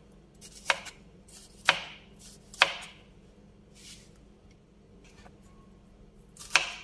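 Kitchen knife slicing through Chinese bitter gourd and tapping the cutting board, one cut about every second: three cuts, a pause of about three seconds, then cutting again near the end.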